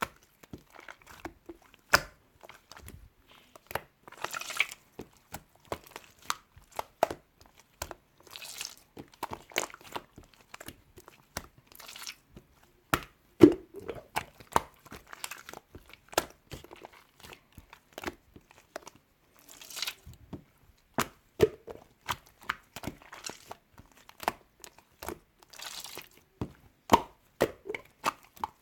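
Close-up handling sounds: irregular crinkling and rustling with frequent sharp clicks and taps.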